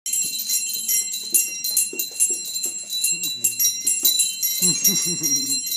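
Small jingle bells on two toddlers' wrist and ankle bands jingling continuously as they dance, shaken in quick, irregular strokes.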